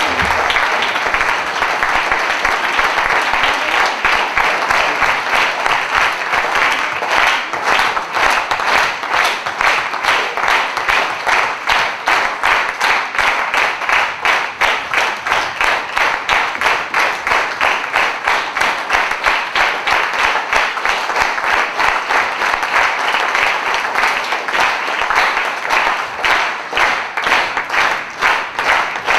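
Theatre audience applauding. About seven seconds in, the clapping falls into steady rhythmic clapping in unison, about two claps a second.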